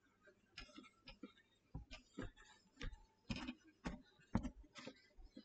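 Whiteboard being wiped clean by hand: a series of faint, short rubbing strokes, about two a second.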